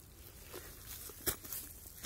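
Dry pine needles and dead leaves rustling and crackling as they are disturbed, with a few short crunches, the loudest about 1.3 seconds in.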